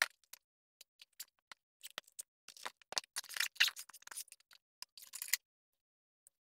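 A loaded nylon tool backpack and its tools being handled: scattered light clicks and knocks, with a stretch of fabric rustling and scraping from about two and a half to five and a half seconds in.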